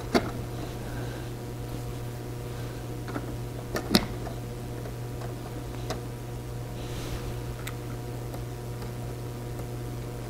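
A few light, irregular clicks and taps of 3D-printed plastic clock parts as the hands are pushed onto the clock's hand shaft, the loudest about four seconds in, over a steady low hum.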